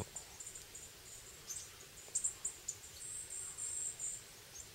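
Faint, very high, thin chirps of a small songbird in spruce branches: a scatter of short notes, with a longer drawn-out note about three seconds in.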